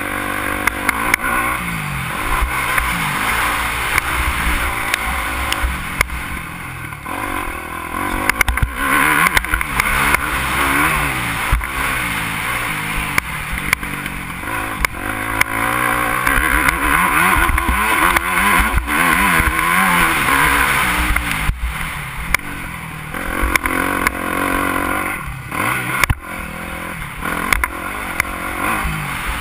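Yamaha motocross bike's engine heard from the rider's helmet, revving up and falling off again and again through the gears over the track, with rough wind rumble on the microphone. There are short knocks and drops in sound about three-quarters of the way through.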